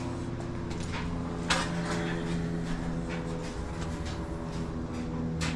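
Light clicks and clatter of a dryer heating element being handled, over a steady hum made of several pitched tones.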